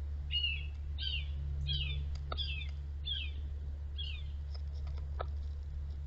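A bird calling: a series of six quick chirps, each sliding down in pitch, a little under a second apart, stopping about four seconds in. A few light taps fall among them.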